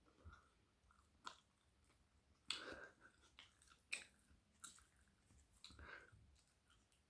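Close-miked chewing and biting of spiced flatbread: soft, irregular mouth clicks and short chewing bursts, the loudest bite about two and a half seconds in.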